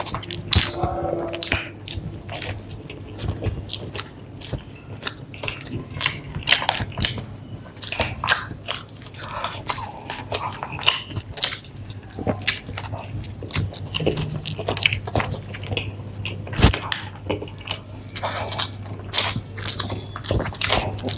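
Close-up biting and chewing of a burger and french fries: an irregular run of crunches and mouth clicks over a steady low hum.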